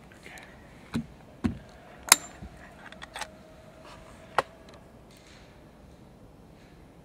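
A handful of sharp clicks and knocks, about five over three and a half seconds, the one about two seconds in the loudest, the first two with a dull thump.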